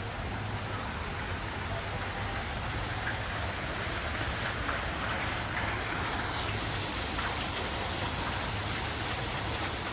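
Steady, even rushing noise with no distinct events, rising slightly in level partway through.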